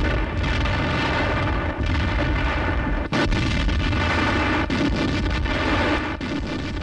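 Battle sound on a wartime newsreel soundtrack: a dense, continuous din of explosions and shots, with many sharp blasts over a deep rumble and a brief break about three seconds in.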